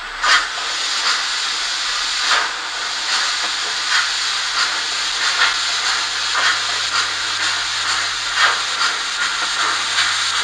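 Sound decoder of a PIKO N-scale BR 82 model steam locomotive playing its running sound: a steady steam hiss with short knocks at uneven spacing, roughly once a second, from the rail-joint (Schienenstöße) effect that is switched on.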